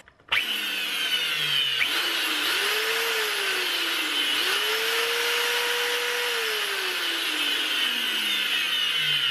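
Electric belt sander's motor and drive running with no sanding belt fitted, switched on just after the start: a steady motor whine whose tones slide slowly up and down. It is a test run after a bearing replacement, made to find a part that rubs and heats up.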